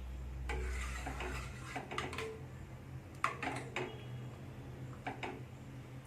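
A metal utensil clinking and scraping against a cooking pot on the stove: a handful of separate knocks and rubs spread over several seconds.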